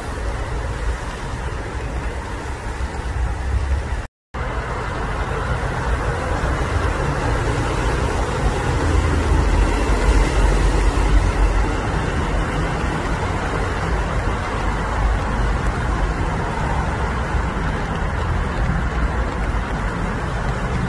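Steady low outdoor rumble, with no distinct events in it. It cuts out completely for a moment about four seconds in.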